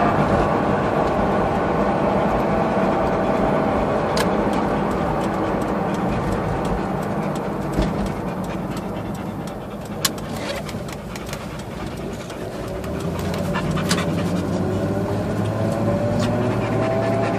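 Toyota 4Runner running, its engine tone dropping away through the middle and climbing again near the end, with a few sharp clicks along the way.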